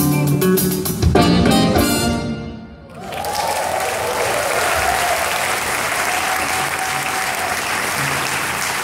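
A jazz band with electric guitar, keyboards and drum kit plays the last chords of a number, with a drum hit about a second in. The sound dies away by about three seconds in, and the audience breaks into steady applause.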